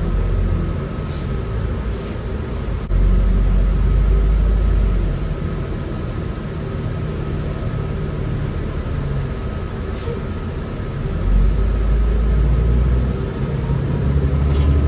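Cabin noise of a 2005 New Flyer C40LF bus: its Cummins Westport C Gas Plus natural-gas engine and Allison B400R automatic transmission running with a low rumble that swells twice, about three seconds in and again near the end. A faint steady high whine and a few light rattles sit over it.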